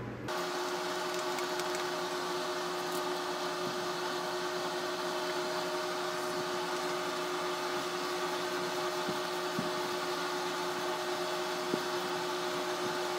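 A small electric motor running with a steady, unchanging hum, two held tones over a soft hiss. A few faint scrapes sound on top.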